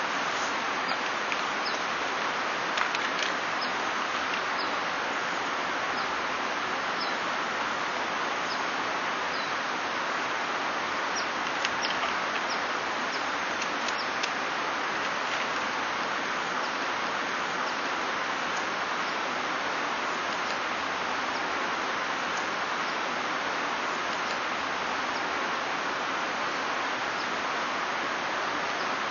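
Rushing white water of a mountain river, a steady even roar. A few faint high chirps come through it, mostly in the first half.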